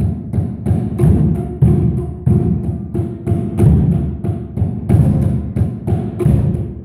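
Batucada-style drumming on drums made of stacked tyres, beaten with plastic tubes by several players: a steady beat of low, booming thuds, about three strokes a second.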